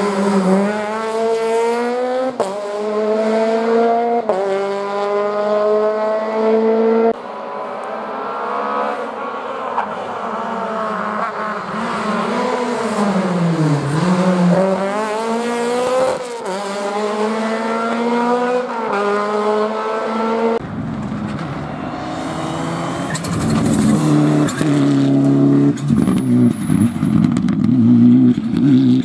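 Rally cars, among them a Peugeot 208 and an Opel Kadett, passing one after another at full throttle. Each engine revs up through a run of quick upshifts, and about midway one brakes and drops down through the gears before accelerating again. After about twenty seconds a different engine takes over, running rougher.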